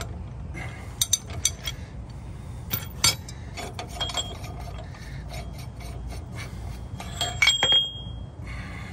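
Steel ball joint press C-frame and its adapter cups being unscrewed and lifted off a truck's lower control arm: scattered metal clinks and knocks, with one ringing clink near the end.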